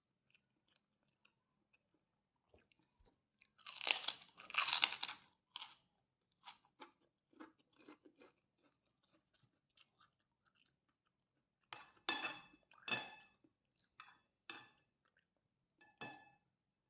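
A person eating fried rice: crunchy chewing and spoon scrapes in short bursts, loudest about four seconds in and again about twelve seconds in.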